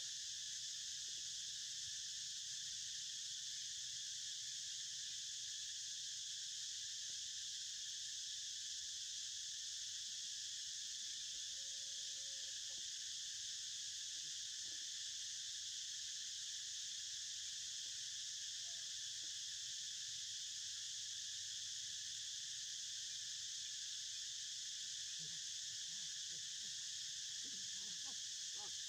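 Steady chorus of insects, an unbroken high-pitched chirring that doesn't change, with a few faint short sounds near the end.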